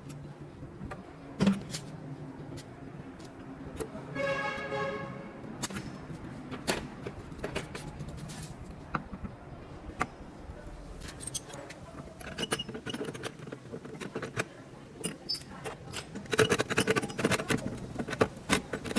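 Scattered light clinks and knocks, growing denser and louder near the end, with a short pitched tone about four seconds in.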